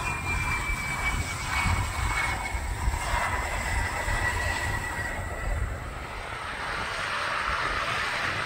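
Jet whine from the Embraer Praetor 500's turbofan engines, falling slowly in pitch over a rushing rumble. About five seconds in it gives way to a steadier rush without the whine, from the Beechcraft B200 Super King Air's turboprop engines.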